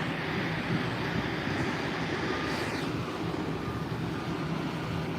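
Steady outdoor noise of road traffic, with some wind on the microphone.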